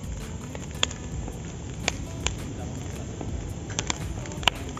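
Wood crackling and popping in a tall stacked-log bonfire: about six sharp pops over a steady low rumble.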